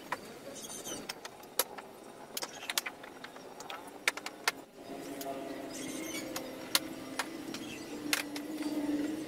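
Sharp plastic clicks and knocks as a car's front bumper cover and its clips are fitted back into place. About halfway through, a steady engine hum comes in and grows louder toward the end.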